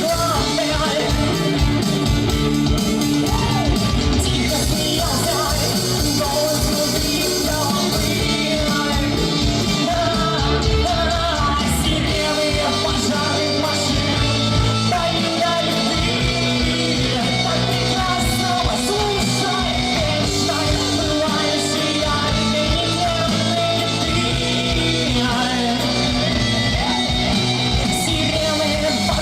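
A band playing live with a singer, loud and continuous, with a steady drum beat.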